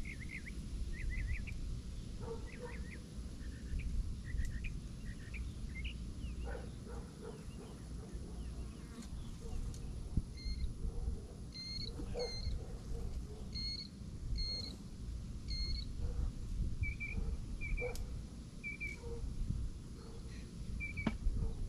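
Small birds chirping in short notes: a quick run of notes at first, then evenly spaced chirps and a few clear single notes later, over a low wind rumble on the microphone.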